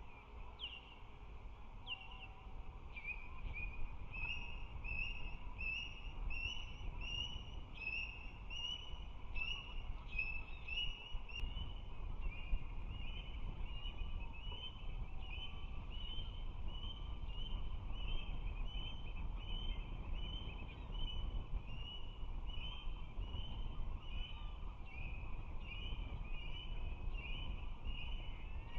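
Osprey calling: a long, steady series of short, high whistled chirps, about two a second, over a low steady rumble.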